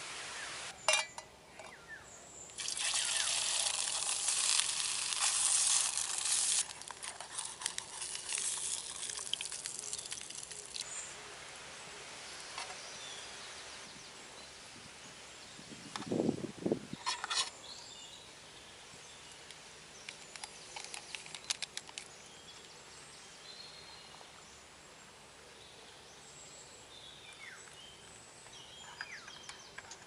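Camp cooking with an aluminium mess tin and metal utensils: a few seconds of steady hissing early on, then scattered clinks, scrapes and knocks of a metal spatula and spoon against the tin and a mug.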